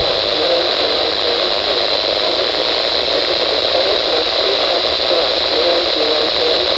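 Weather radio receiver on a weak station: steady static hiss with a faint voice barely audible under it.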